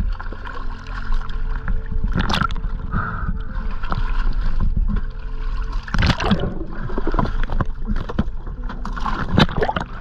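Sea water sloshing and splashing around a camera held at the surface, with big splashes about two seconds in, at six seconds and near the end. A steady low hum runs underneath.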